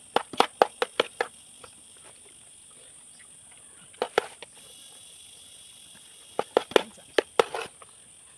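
Steel spoon clinking and scraping against a steel pot and plate while rice is served, in clusters of sharp clicks: a quick run of about six in the first second and a half, two about four seconds in, and several more around six and a half to seven and a half seconds in.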